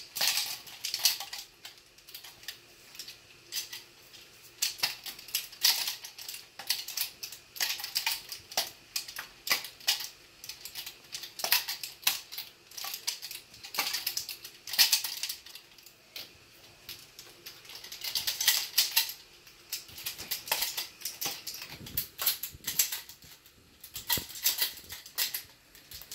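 Nunchucks being swung and twirled, rattling and clacking in quick, irregular clusters of sharp clicks.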